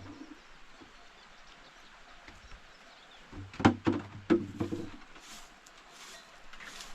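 A quick run of sharp knocks and clatter about halfway through, against a quiet background.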